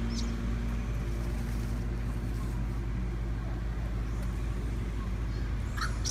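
A vehicle engine idling with a steady low hum, with a brief high chirp just after the start and a couple more near the end.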